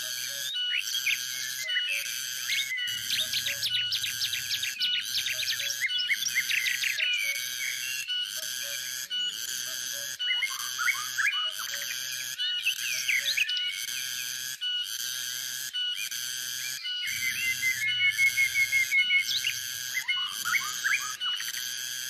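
Cicada song: a steady, rhythmically pulsing whistle-like drone, with songbirds chirping and calling over it and a fast even trill from one bird a little after the middle.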